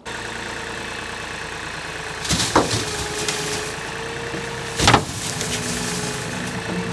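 Engine of a snow-scooping loader running steadily, with two sharp clunks about two and a half and five seconds in.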